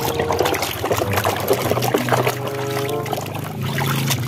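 A hand sloshing and scrubbing a plastic toy in a basin of muddy water, with irregular splashes. Background music with a steady bass plays throughout.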